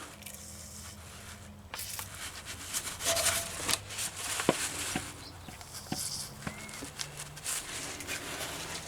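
Aerosol brake cleaner sprayed in several short hissing bursts into tapped bolt holes in an aluminium inlet manifold adaptor, flushing them out before thread inserts go in. Sharp clicks and knocks from handling the can and the part come between the bursts.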